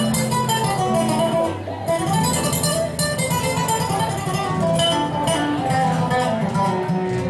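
Acoustic guitars played live: a fast run of plucked melody notes over strummed chords.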